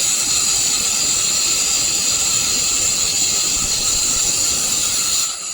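Handheld laser welding gun welding: a steady, loud hiss with a high whine over it, dying away near the end.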